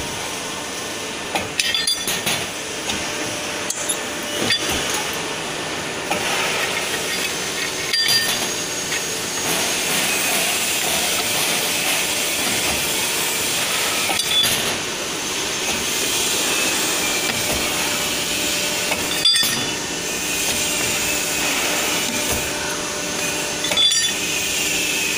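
Hydraulic tube-cutting press running steadily while its die cuts square steel tube, with sharp metallic clanks and clinks every few seconds.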